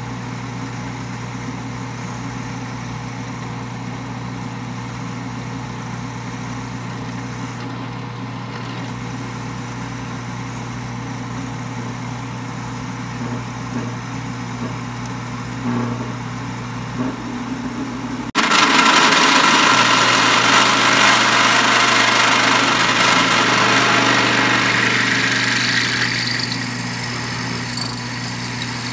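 Drill press running, its bit boring into a steel block lubricated with cutting oil, with a steady motor hum. About two-thirds of the way through, the sound jumps abruptly to a louder, harsher cutting noise as a bigger drill bit bores in, easing off somewhat near the end.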